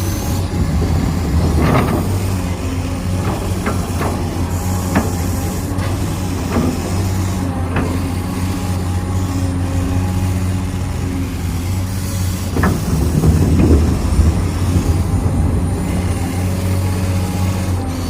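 Radio-controlled construction models' electric drive motors and gearboxes running with a steady hum, broken by several short clicks and knocks.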